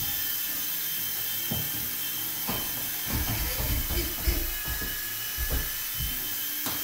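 Electric motors and co-axial rotors of a Century UK Nano CX micro RC helicopter whirring with a steady high whine as it hovers, with scattered dull low thumps.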